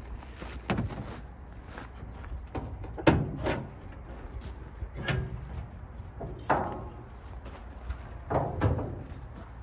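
The hood of a long-dormant 1957 Plymouth being unlatched and raised: a string of separate metal knocks, clunks and creaks from the latch and the dry hood hinges. The loudest knock comes about three seconds in.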